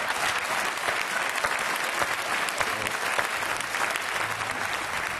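Studio audience applauding, an even patter of many hands clapping that thins out near the end.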